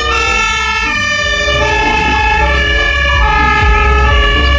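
Fire engine siren sounding in steady tones that step up and down in pitch every half second or so, over a steady low rumble.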